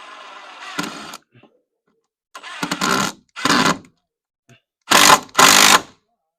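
Power drill driving a screw into the window frame: a quieter run for about the first second, then four short, louder bursts.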